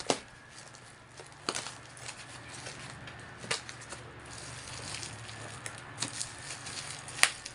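Scissors snipping through a plastic bubble-wrap mailer: a handful of sharp snips spaced a second or more apart, the loudest near the end, with the plastic crinkling in between.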